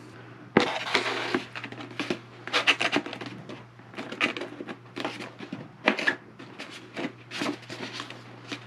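RC plane cowl being pushed and twisted by hand onto the nose over the motor: irregular scraping, rubbing and light clicks and knocks of the cowl against the airframe.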